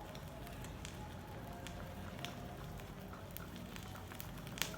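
Faint, irregular crackling and ticking of two small pieces of shisha charcoal burning on a coal burner as they are fanned to a full red glow, over a steady low hiss, with a sharper snap near the end.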